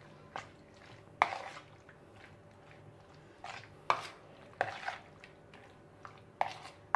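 Metal spoon stirring cubes of raw chicken in a yogurt and spice marinade, knocking and scraping against a plastic bowl in irregular strokes. The loudest knocks come about a second in and near four seconds in.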